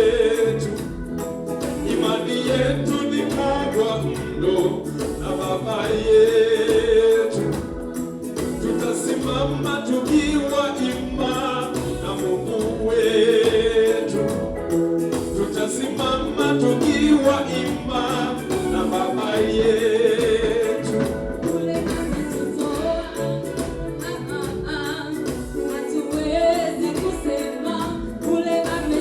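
Church choir singing a Swahili gospel song with several voices over a steady, regular beat.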